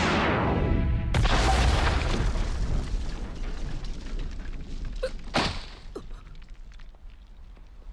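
Anime sound effects of a heavy crash: a loud boom about a second in, then a rumble that slowly dies away, with two sharp knocks about five seconds in.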